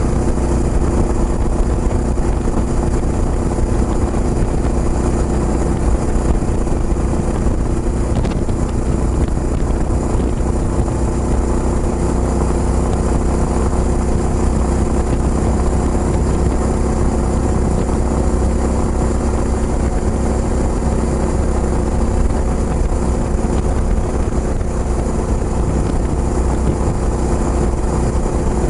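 Kawasaki Estrella's single-cylinder engine through a Yamato aftermarket muffler, running at a steady speed while the bike is ridden.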